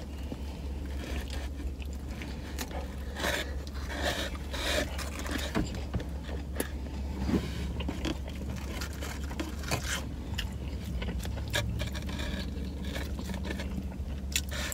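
Close mouth sounds of a person biting into and chewing a chicken teriyaki sub, with short wet clicks and crackles, and the paper wrapper rustling and scraping as it is handled, over a steady low hum.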